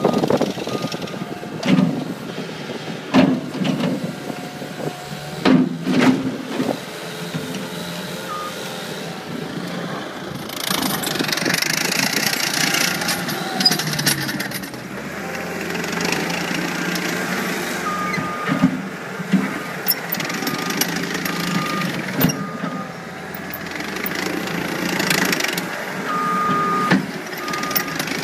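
Cat 267B compact track loader working: its diesel engine runs and revs up under hydraulic load, with repeated metal clanks and knocks from the bucket and tracks. A backup alarm beeps in stretches, from about two-thirds of the way through and again near the end.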